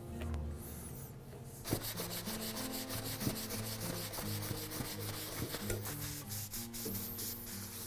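Quick back-and-forth rubbing strokes by hand on the wooden handle scales, about six a second, starting about two seconds in. Background music plays underneath.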